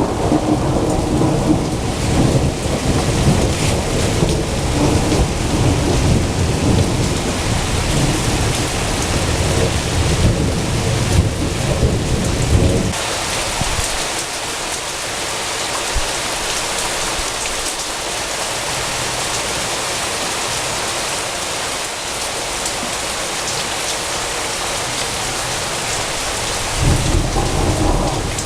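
Heavy rain falling steadily, with a long rumble of thunder that dies away about halfway through; another rumble of thunder begins near the end.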